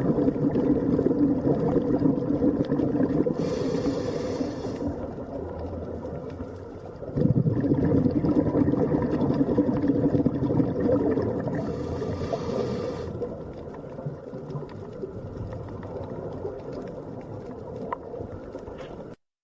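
Low, sustained ambient drone with steady pitched layers. It swells up twice, about eight seconds apart, and fades slowly after each swell, with a brief hiss laid over it twice. It cuts off suddenly just before the end.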